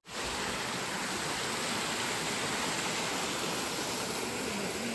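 Steady rush of a small mountain stream cascading over rocks, an even sound of running water.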